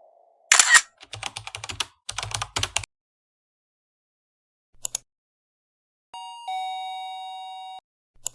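A short hiss, then a fast run of clicks, then a steady electronic beep tone held for under two seconds.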